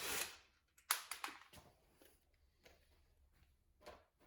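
Hand tools working on a bicycle pedal: a short scrape at the start, then a few sharp clicks and knocks about a second in, and one faint knock near the end.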